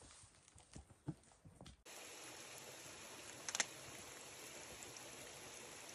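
Faint footsteps and rustling on leaf litter as people walk through bush. About two seconds in, a steady hiss takes over, with a brief cluster of sharp clicks in the middle.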